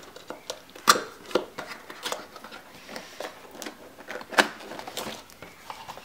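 Cardboard product box being opened by hand: the lid sliding and rubbing on the box, with several sharp taps and clicks of cardboard.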